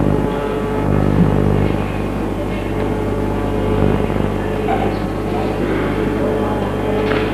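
A muddy live recording of Indian devotional music: a steady held harmonium drone under a heavy low electrical hum, with a voice faintly audible in the latter half.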